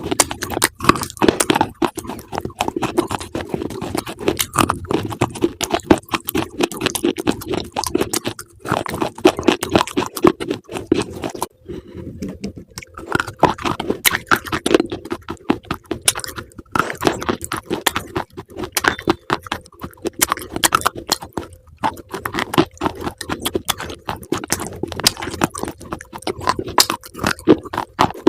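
Close-up crunching and chewing of crunchy food, a dense crackling run of bites with a few short pauses.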